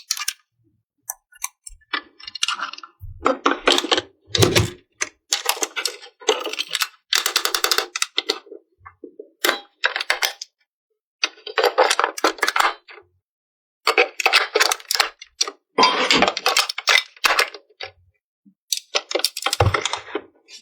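Hard plastic toy pieces being handled and fitted together, a long run of clicking and rattling in irregular bursts, with a few dull knocks.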